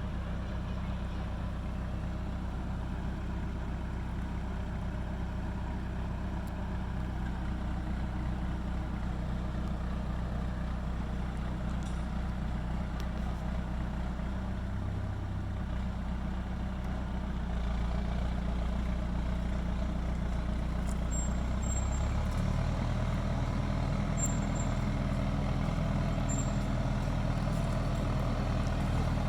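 John Deere 450 crawler's engine running steadily as the machine is driven. The engine note shifts and gets a little louder about two-thirds of the way through.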